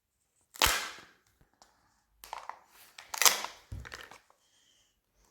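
Two sharp plastic clacks about two and a half seconds apart, with fainter rustling between them, as a Kinder Joy egg is handled and opened.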